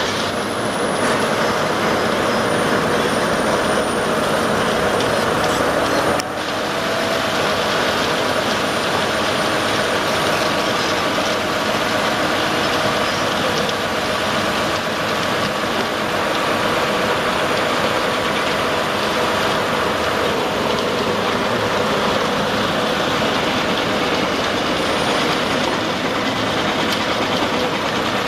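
Heavy diesel construction machinery running steadily: a concrete mixer truck discharging concrete down its chute into a steel pile casing. There is a brief drop in level about six seconds in.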